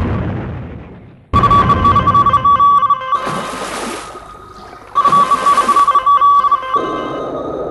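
Electronic rock soundtrack built in a music-maker program: a shrill ringing tone stutters rapidly in two stretches, with a low rumble that dies away in the first second and a stretch of hiss between the two ringing parts.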